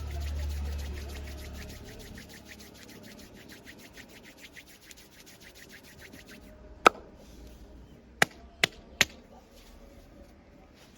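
Joints being cracked: one sharp pop, then three more in quick succession just over a second later. Before them, a fast, even ticking.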